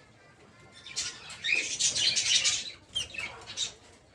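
Peach-faced lovebirds flapping their wings: a flurry of wingbeats starting about a second in, then a few shorter flutters, with a couple of brief chirps.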